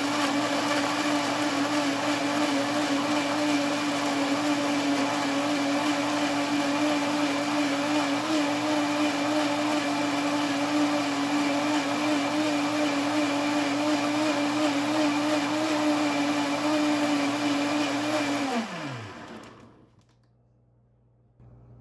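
Countertop blender motor running at a steady speed, blending jackfruit pulp, milk and crushed ice into a punch. Near the end it is switched off and its pitch falls as the blades spin down.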